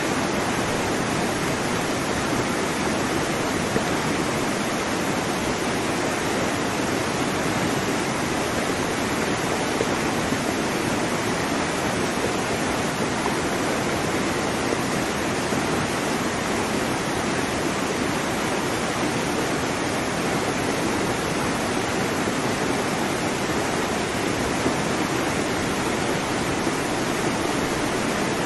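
Steady rushing-water noise, even and unbroken, with no rise and fall of separate breaking waves.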